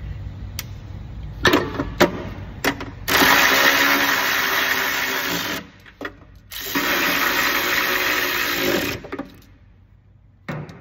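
Cordless battery-powered ratchet with a 10 mm deep-well socket running in two runs of about two and a half seconds each, driving down the nuts that hold a new NOx sensor. A few sharp clicks from handling the tool and nuts come before the first run.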